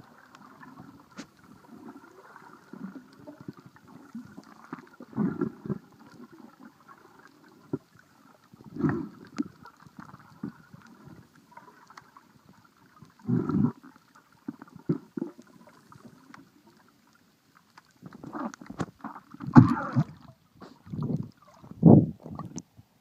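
Muffled underwater noise picked up by a handheld underwater camera: a low swishing of water, with louder surges every few seconds that come closer together and louder near the end.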